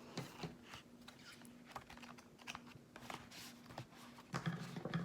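Quiet handling of a paper photobook album: scattered light taps, clicks and rustles as its pages and inserts are handled, with a louder bump about four and a half seconds in.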